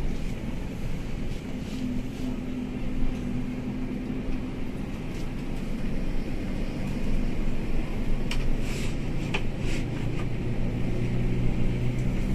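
Cabin noise inside a moving NPM Sutan Class coach: a steady engine hum with road rumble, the engine note growing stronger over the last few seconds as the bus picks up. A few short, sharp high-pitched noises come about eight to ten seconds in.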